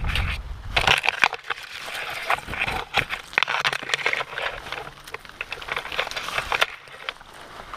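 Footsteps crunching and snapping through dry undergrowth, with rustling and twig crackles, dying down near the end.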